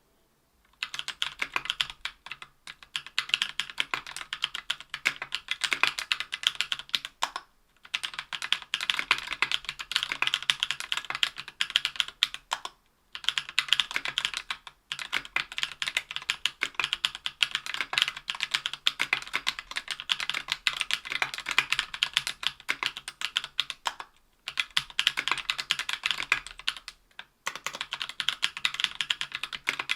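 Typing on a Tofu 60% aluminium mechanical keyboard with Durock Anubis 65 g tactile switches, lubed with Krytox 205g0, and GMK keycaps. A dense stream of keystrokes starts about a second in and breaks off for a few short pauses.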